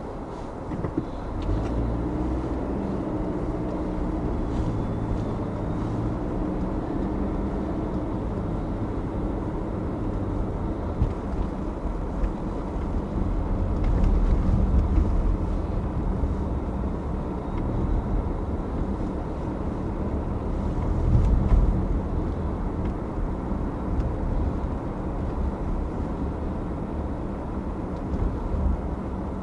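A car driving: steady low engine and tyre rumble that picks up about a second in and swells louder twice, once midway and again about two-thirds through.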